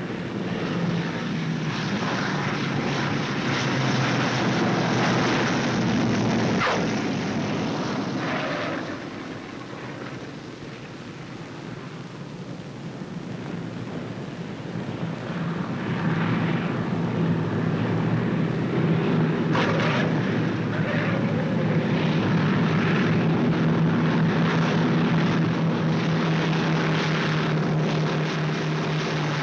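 Twin piston engines and propellers of a B-25 Mitchell bomber, running in a steady drone that fades in the middle and swells back louder from about halfway through as a plane comes in to land. A couple of sharp cracks cut through the drone, one about a quarter of the way in and one about two thirds through.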